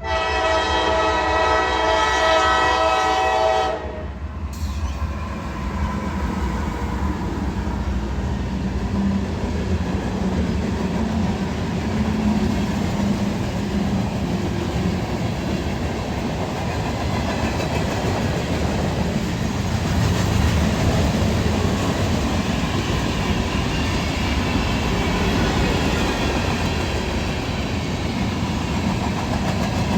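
CSX freight train: the locomotive's horn sounds a chord of several notes for nearly four seconds and stops, then the train rolls past with a steady rumble of wheels on rail.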